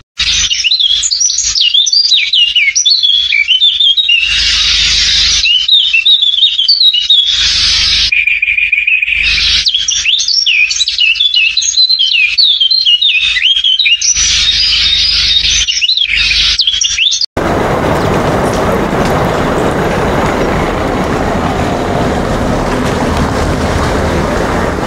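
Many birds chirping and twittering, a dense tangle of quick rising and falling notes. About seventeen seconds in it cuts off suddenly, giving way to a steady rushing noise.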